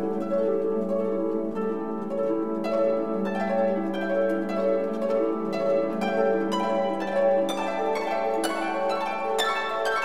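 Instrumental background music: a plucked-string, harp-like melody over sustained notes.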